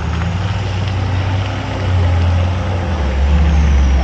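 Nissan Patrol GR Y61 4x4's engine running under way, a low drone that grows louder about halfway through and drops slightly in pitch near the end.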